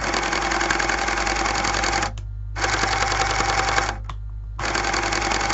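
Lego electric motor whirring as it drives a gear train through a black worm gear, running in three spells with short pauses between.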